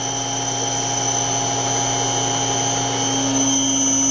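Three-phase electric motor spinning steadily on a variable-frequency drive set to about 30 Hz, a little more than half its full speed: an even machine hum with several high steady whines.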